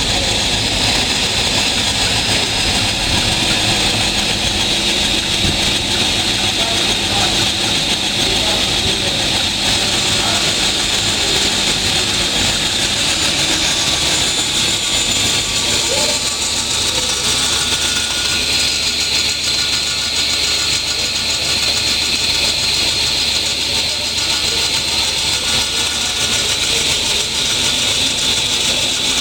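Table saw running steadily, a continuous machine drone with a hiss-like band high up; its low hum changes about halfway through.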